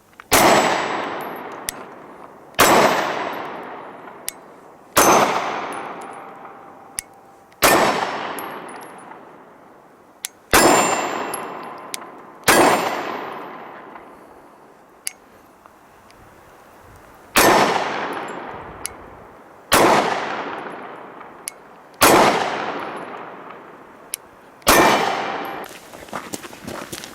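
Ten slow, evenly paced shots from a Glock 26 Gen 4 9mm compact pistol, about two and a half seconds apart. Each sharp report rings out and dies away over a couple of seconds.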